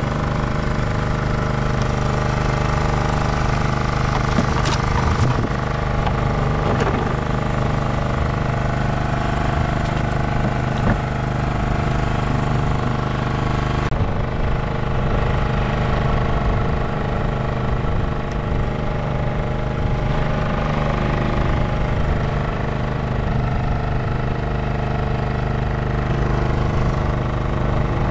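An engine idles steadily at an even speed throughout, with a few brief knocks in the first half.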